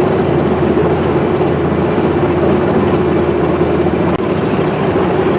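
Boat motor running steadily at cruising speed: an even, constant-pitch drone over a rushing hiss.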